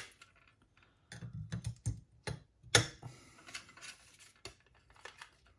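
Irregular light clicks and taps from handling the Akai GX-9 cassette deck's tape transport mechanism, with the sharpest click nearly three seconds in.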